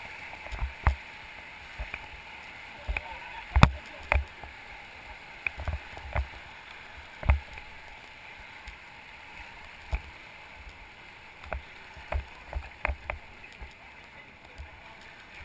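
River water running steadily around an inflatable raft, with scattered sharp knocks, the loudest a little over 3.5 seconds in and about 7 seconds in.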